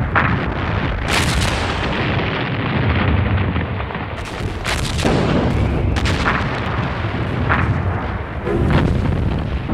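Battle sounds of artillery and gunfire: a string of sharp reports and blasts, several seconds apart, over a continuous low rumble.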